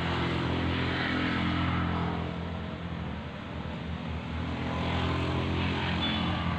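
An engine running steadily in the background with a low droning hum, swelling about a second in and again around five seconds in.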